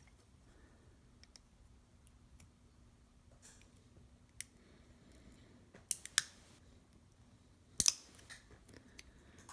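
Small sharp clicks and snaps of a screwdriver tip prying the one-piece plastic window insert out of a 1/64 scale diecast car body, a few scattered, the loudest coming in two quick pairs about six and eight seconds in. The plastic is cracking as it is levered.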